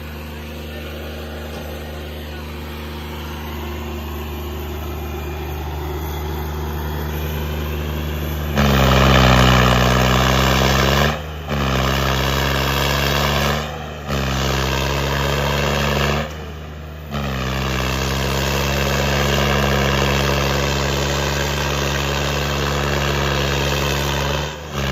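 Diesel tractor engine labouring under heavy load as it pulls against another tractor in a tug-of-war, a steady pitched drone. It builds slowly, becomes much louder about a third of the way in, and breaks off abruptly for short moments several times.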